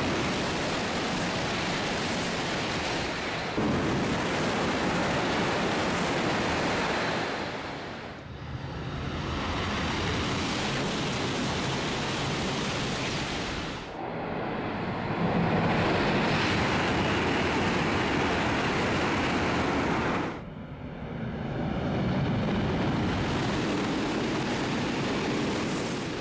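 Shinkansen bullet trains passing at speed on elevated track: a loud, steady rushing noise that comes in several long passes, dipping briefly three times as one pass gives way to the next.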